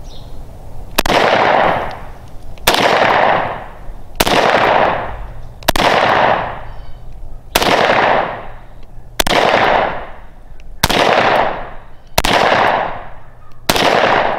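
Zastava M57 pistol in 7.62x25 Tokarev fired nine times at an even slow pace, about one and a half seconds apart, emptying its nine-round magazine. Each sharp report is followed by a short rolling echo. The shooter calls the recoil pretty snappy.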